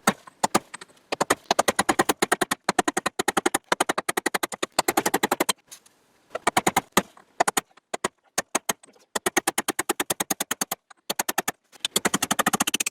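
Rapid metal hammer blows on the end of a steel axle, driving it out of a seized wheel hub, coming in runs of a second or two with short breaks. The blows are mushrooming the axle tip.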